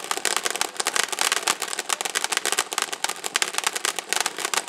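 Ground fountain firework spraying sparks, giving off a dense, rapid crackle of many small pops.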